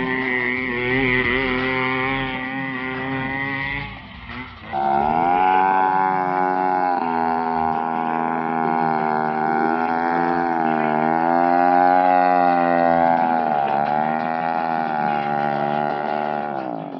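Motorcycle engine of a three-wheeler mini tractor running under load as it pulls a tiller through the soil. Its pitch sags and rises slowly as the load changes, and it briefly drops away about four seconds in before picking back up.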